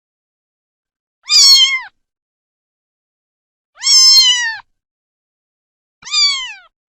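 A domestic cat meows three times, a couple of seconds apart. Each meow is pitched and drops in pitch at its end, and the third is the shortest, ending in a falling slide.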